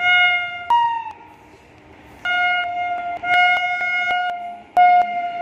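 WAP-7 electric locomotive's horn sounding a series of blasts. It opens with a short blast that steps up to a higher note. After a pause come two longer blasts back to back, then a last blast that is still sounding at the end.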